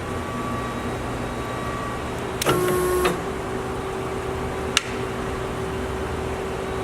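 Cosen AH-320H automatic band saw running with a steady machine hum. About two and a half seconds in, a hiss lasts about half a second while the hum dips slightly in pitch, as if under load. A single sharp click follows near five seconds.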